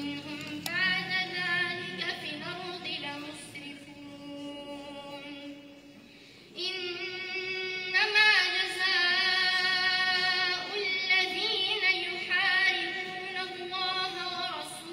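A woman reciting the Quran in melodic tajweed style, drawing out long ornamented notes. The recitation breaks off briefly about six seconds in and resumes louder and higher.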